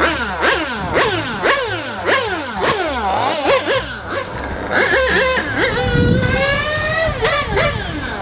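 High-pitched nitro glow engine of a 1/8-scale RC car (an Italian Picco engine) being revved in quick blips, about two a second. About five seconds in it settles into a steady run whose pitch slowly rises.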